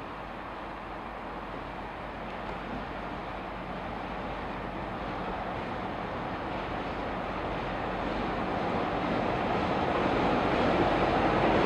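Taiwan Railway R100-series diesel-electric locomotive approaching along the station track, its engine and wheels a steady noise that grows steadily louder as it nears.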